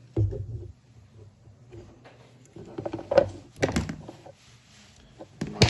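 Dental models being handled and turned: a low thump just after the start, a cluster of sharp clicks and knocks about three to four seconds in, and one sharp click near the end.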